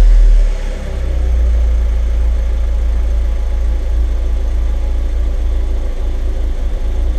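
Self-assembled Audi TT mk1 (8N) engine just after starting: the start-up flare settles about a second in to a steady idle with a strong low rumble.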